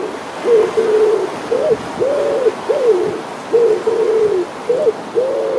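Pigeons cooing: a steady run of short, low coos, about two a second.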